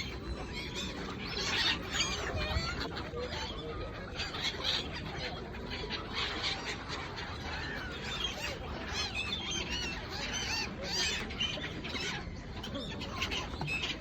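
A flock of gulls calling, many short squawking calls overlapping one another.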